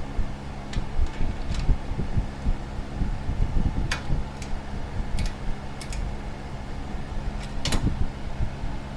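Electric fan running with a steady hum and a pulsing low rumble, with a few sharp clicks of tool work, the loudest about four seconds in and near the end.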